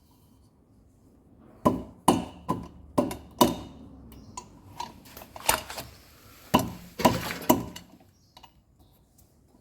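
About ten sharp knocks and clatters at irregular intervals, most of them in the middle of the stretch: hard parts and tools being handled while a washing machine's direct-drive motor rotor is taken off.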